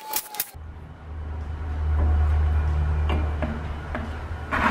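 An impact gun rattles on the axle-shaft hub bolts for about half a second, then stops. A steady low hum follows, with a few light metallic clicks and a louder clank near the end.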